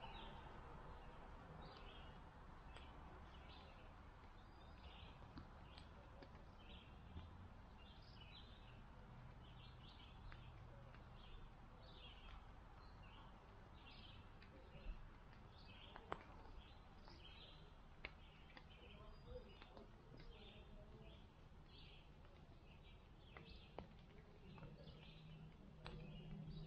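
Faint, high, short chirps repeated steadily, about one or two a second, with a few sharp ticks among them.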